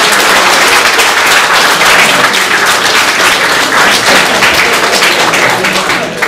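Audience applauding: a loud, dense patter of many people clapping that dies away about six seconds in.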